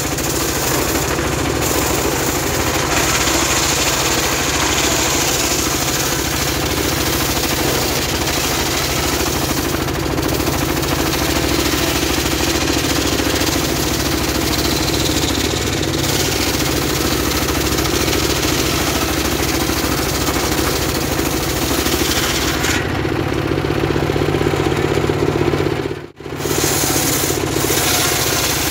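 Homemade engine-driven circular sawmill ripping a log of very hard wood lengthwise: the engine runs steadily under load while the blade cuts through with a continuous loud, rasping noise. The sound cuts out for a moment near the end, then picks up again.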